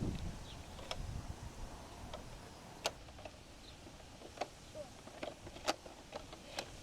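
Scattered sharp clicks and knocks of plastic toy construction vehicles being worked in dirt, about five spread across a few seconds, over a low wind rumble on the microphone.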